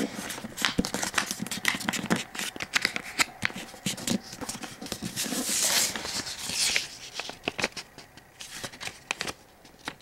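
A sheet of paper being folded and creased by hand: crisp rustles and quick scrapes and taps, with a longer rustling sweep about five to seven seconds in, thinning out near the end.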